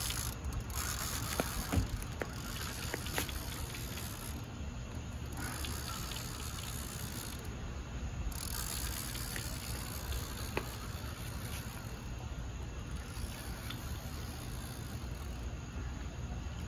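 Spinning reel being cranked to bring in a hooked fish on a surf rod, heard as faint mechanical noise with a few faint clicks over a steady background hiss.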